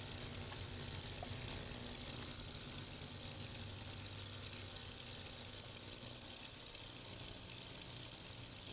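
Ultrasonic cleaner running: a steady high hiss of cavitation in the tank with a low hum under it, as it works rust and crud off a submerged hydraulic valve part.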